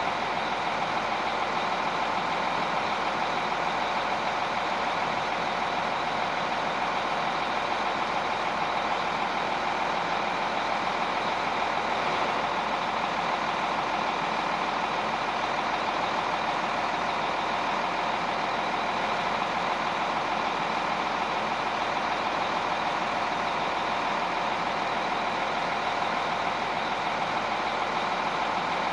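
Steady heavy truck engine running sound that holds the same pitch and level throughout, a dubbed-in engine sound effect rather than the hand-pushed toy grader itself.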